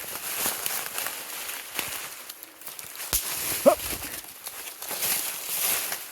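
Footsteps crunching and sliding through dry leaves and brush on a steep slope, with scattered snaps and a thump about three seconds in. A short vocal sound, rising then falling, comes just after the thump.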